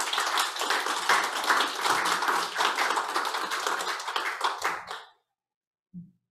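Audience applause, a dense patter of many hands clapping that dies away about five seconds in. A soft low thump follows near the end.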